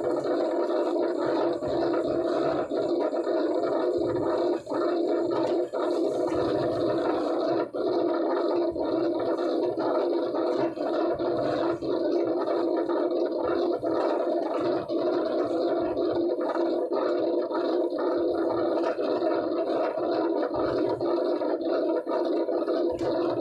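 Steady, even running noise of factory machinery in a corrugated box workshop, with faint scattered ticks from corrugated board sheets being handled.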